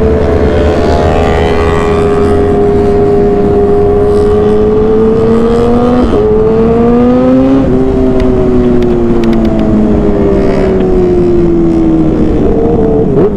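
Kawasaki ZX-6R (ZX-636) inline-four engine running under way at fairly steady revs. About six seconds in and again about two seconds later the revs drop sharply in quick upshifts, then fall slowly as the throttle eases off. A steady low wind rush runs underneath.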